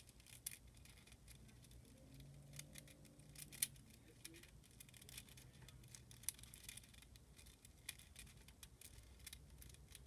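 Faint, irregular clicks and clacks of a tiny 3D-printed 5x5 puzzle cube's plastic layers being turned by hand.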